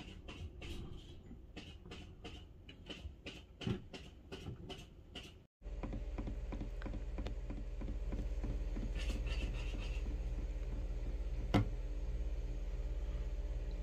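Regular light ticking, about two or three ticks a second. After a cut about halfway, a steady low mechanical hum takes over, with a single sharp click near the end.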